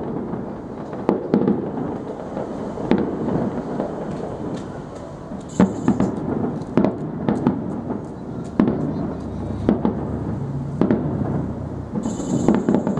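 Aerial fireworks shells bursting in the sky, a string of booms at irregular intervals about one to two seconds apart, with a continuous rumble between them.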